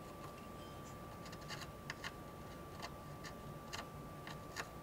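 Faint, irregular small clicks and taps of soldering tools against a circuit board while pads are cleaned up with solder wick, over a steady faint high-pitched tone.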